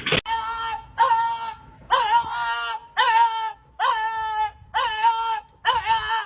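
A dog whining or howling in a series of about seven high cries, roughly one a second. Each is a held note that opens with a short upward scoop.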